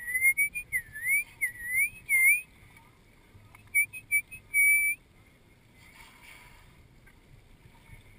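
A run of loud whistles sliding quickly up and down in pitch for about two and a half seconds. After a short gap, a second, shorter run of quick whistled chirps ends about five seconds in.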